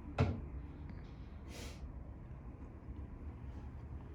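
Quiet room hum with a single short thump about a quarter second in and a brief soft hiss a little past one and a half seconds.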